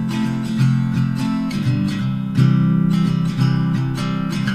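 Background music: acoustic guitar strummed in an even rhythm.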